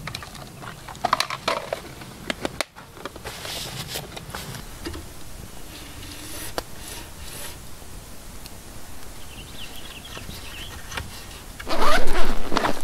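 Small campfire of split kindling catching, with scattered crackles and pops. Near the end, a loud rustling and crinkling as a padded bag is opened by hand.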